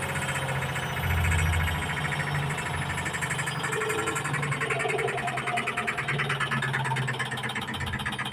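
Samsung washing machine in its spin cycle, the drum running with a low hum and a fast, even rattle.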